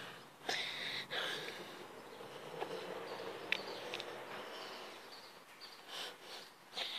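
Faint outdoor background noise with a few short breaths close to the microphone, and a couple of small sharp clicks about halfway through.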